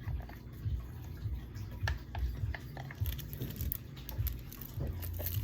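Drink bottles and cans being moved about in a mini fridge: a few short knocks and clicks over a low, repeated thudding.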